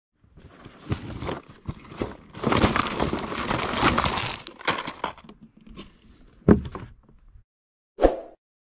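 Packaged fishing lures in plastic bags and blister packs crinkling and clattering as they are tipped and spread out on a wooden table, with many sharp knocks. The handling is busiest for a couple of seconds near the middle, there is one loud knock a little after that, and there is a short thud near the end.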